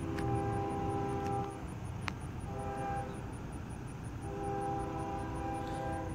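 Air horn of an approaching freight train's lead locomotive, a GE ES40DC, sounding a crossing signal: a long blast, a short one, then another long one, several notes sounding together as a chord, over a low rumble.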